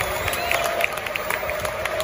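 Football stadium crowd applauding, with many separate claps near the microphone over a steady wash of crowd noise and voices.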